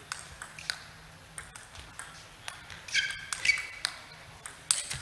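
Table tennis rally: the celluloid ball clicks off the players' rubber bats and the table every fraction of a second. Sneakers squeak briefly on the court floor about three seconds in.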